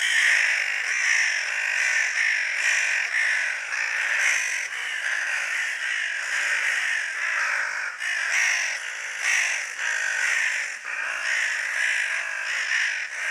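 Crows cawing over and over, several calls overlapping in a dense, continuous chorus.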